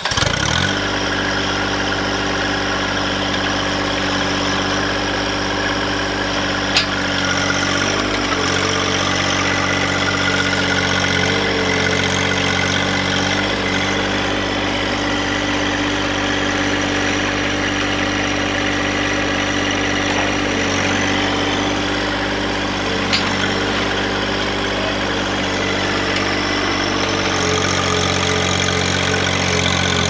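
John Deere 1025R compact tractor's three-cylinder diesel running steadily while the front loader works a stump bucket into the ground to dig a hole. Its note shifts slightly a few times, and two brief sharp clicks sound over it.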